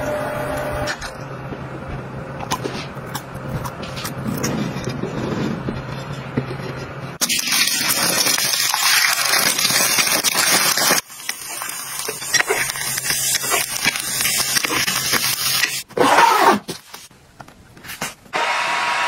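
A handheld fruit and vegetable washer hums steadily in a colander of water. Then eggs sizzle in a frying pan for a few seconds, followed by quieter clicks and handling. Near the end a portable clothes dryer's fan starts blowing steadily.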